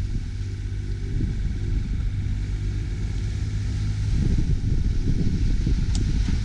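Low, steady rumble aboard a sailboat under way in a choppy sea, with wind buffeting the microphone and growing rougher about four seconds in. A faint click comes near the end.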